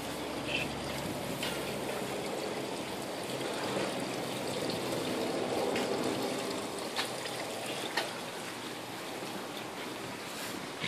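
Water trickling and lapping steadily around the dock and a floating net pen, with a few light ticks.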